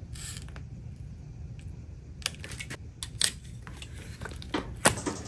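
Scattered light clicks and taps of hand tools and small parts being handled at a motorcycle handlebar, over a low steady hum.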